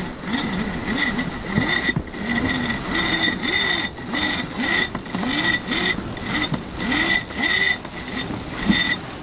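Sailboat winch being ground in quick strokes, about two a second, its pawls clicking with each turn, as the spinnaker halyard is hauled in to hoist the kite.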